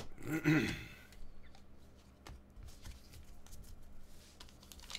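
A stack of slick chrome trading cards being thumbed through and squared in the hands, giving faint scattered clicks and light slides. A short voice sound, like a hum, comes about half a second in and is the loudest thing.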